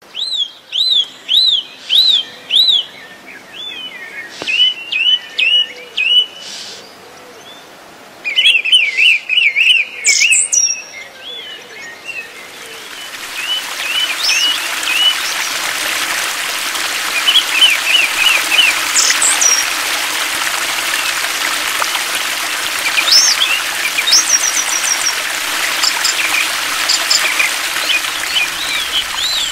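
Woodland songbirds singing in loud phrases of quick repeated chirps. About twelve seconds in, a steady rushing noise rises and stays under them, with the birds still calling over it.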